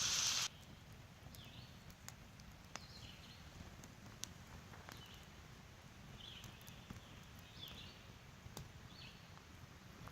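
Venison and onions sizzling in a frying pan, cut off abruptly about half a second in. Then a quiet outdoor background with faint, short high chirps repeating roughly once a second and a few small clicks.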